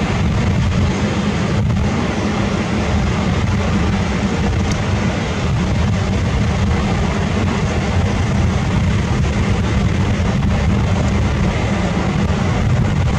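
Steady low rumble of outdoor background noise, heaviest in the bass, with no distinct events.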